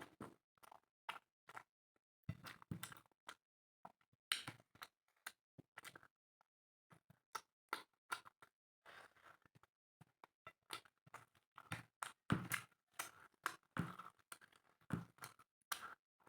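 Close-up eating sounds of spicy chicken with rice: irregular wet chewing and mouth smacks, with many short clicks and small knocks between them.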